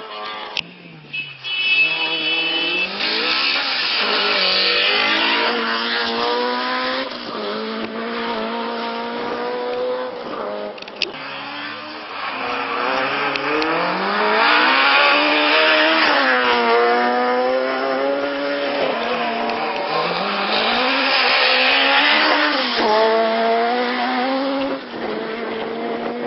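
Rally car engine revving hard through the gears, the pitch climbing and dropping with each change; it slows and comes off the throttle for a junction, then accelerates hard past, loudest about halfway through, and pulls away up through the gears. Two sharp cracks, one near the start and one about 11 seconds in.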